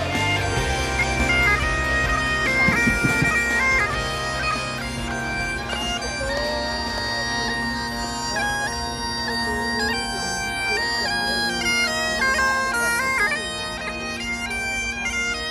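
Great Highland bagpipe played live: a melody stepping from note to note over steady, unbroken drones.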